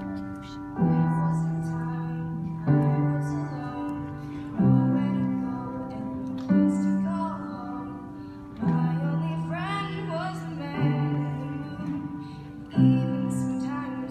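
Piano playing slow, held chords, a new chord about every two seconds, with a female voice singing over them in the middle.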